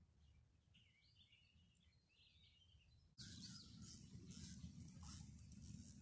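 Faint bird calls, a few short warbling chirps, over quiet outdoor background. About three seconds in, a louder steady rushing noise with repeated bursts of hiss starts abruptly.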